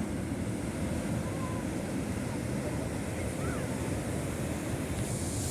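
Sea waves breaking and washing ashore, a steady low rush of surf, with wind buffeting the microphone.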